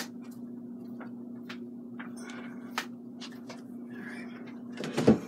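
Palette knife working oil paint flat on a palette: scattered light clicks and scrapes, with a louder knock about five seconds in, over a steady low hum.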